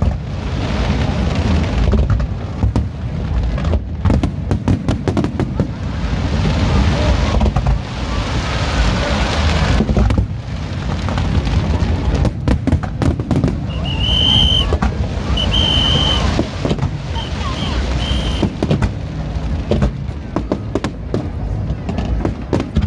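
Fireworks bursting in quick succession: many sharp bangs over a continuous low rumble, with crackling hiss. About halfway through, a high whistle sounds three times, each about a second long.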